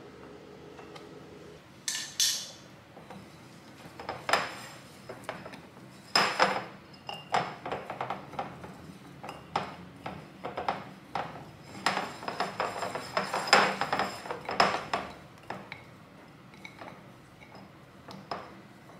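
A hand mixing flour in a glass mixing bowl: many irregular clinks and scrapes of fingers and the bowl against the glass, busiest in the middle and thinning out near the end.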